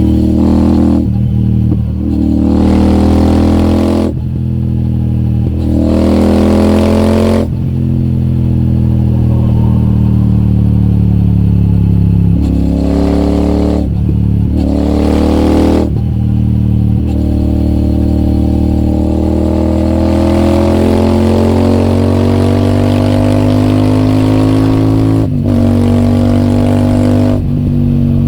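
Royal Enfield Super Meteor 650's parallel-twin engine through an aftermarket AEW TE 202 exhaust, under way, with the throttle repeatedly opened and closed so the revs rise and drop again and again. Past the middle, the revs climb steadily for several seconds.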